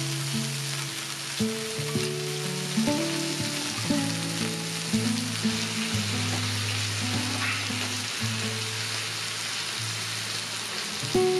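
Meat, sausages and vegetables sizzling steadily on the ridged plate of a BRUNO electric grill pan, with a few light clicks of metal tongs, under background music.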